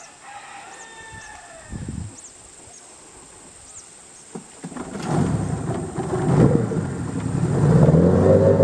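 A boat engine on a wooden river longboat starts up about five seconds in and runs steadily, getting louder as the boat gets under way. Before it there are only faint high chirps and a couple of soft knocks.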